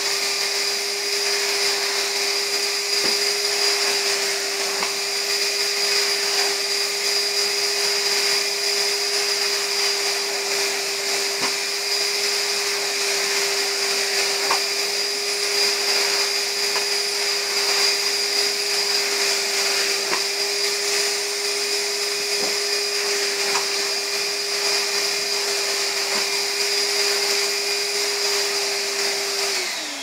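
Numatic George wet-and-dry vacuum cleaner running with a steady motor whine over its suction rush while vacuuming carpet. Near the end it is switched off and the motor winds down in a falling whine.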